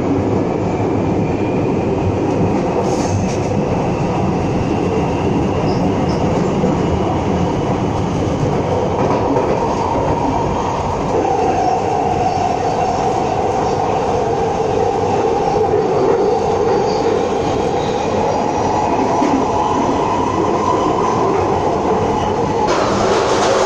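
London Underground Victoria line train running through the tunnel, heard from inside the carriage: a loud, steady rumble and rattle with a whine running over it that shifts pitch about halfway through.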